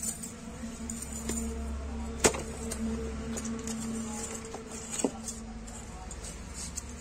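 Hands packing wet clay into a tin box, with a sharp knock about two seconds in and a lighter one about five seconds in. A steady low hum runs underneath through the middle.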